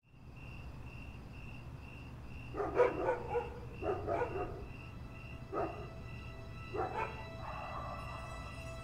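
Night ambience: a dog barking several times, in short bunches, over an evenly repeating insect chirp about twice a second and a low steady hum.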